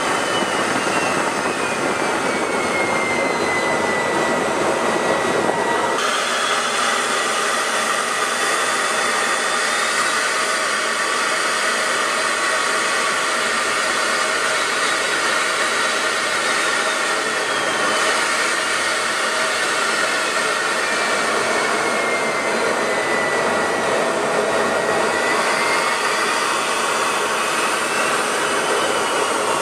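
Steady in-flight jet engine noise with a high whine that slowly falls and then rises in pitch. The sound changes abruptly about six seconds in and again past the middle, as one piece of footage gives way to another.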